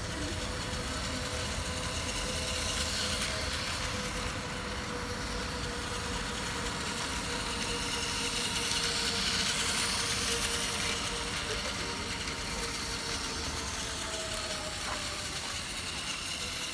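Steady outdoor traffic noise, swelling slightly midway, with a faint steady whine from a battery-powered Plarail toy train's small motor as it circles its track loop.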